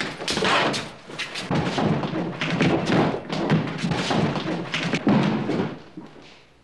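Boots thudding and scuffing on a wooden floor as several people move off in a hurry, dying away near the end.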